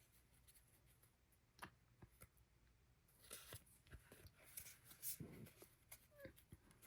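Near silence with faint taps and brief rustles of paper cards and stickers being handled.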